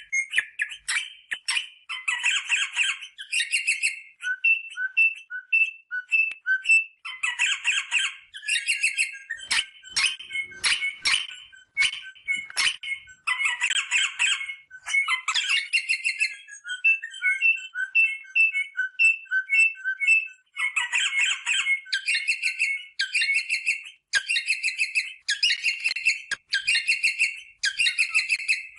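Rosella parrot calling: bursts of harsh chattering alternate with runs of short, evenly spaced whistled notes, repeated throughout.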